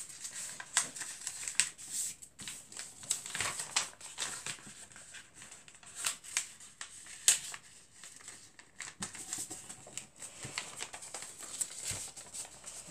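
A4 paper being folded in half and creased by hand: irregular rustling and crinkling with sharp clicks as fingers press and run along the fold, the sharpest about seven seconds in.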